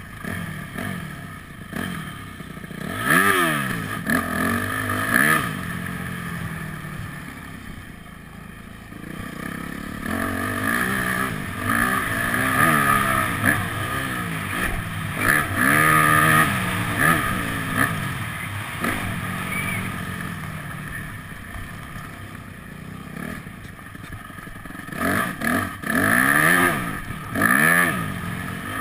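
Motocross bike engine revving up and falling back over and over as the throttle is opened and closed on a dirt track, with louder surges of acceleration several times.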